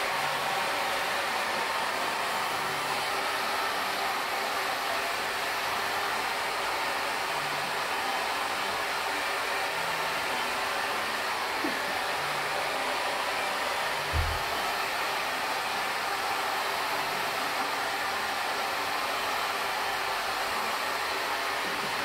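Handheld hair dryer running steadily, blowing a constant rush of air through wet hair as it is dried. A single short low thump about fourteen seconds in.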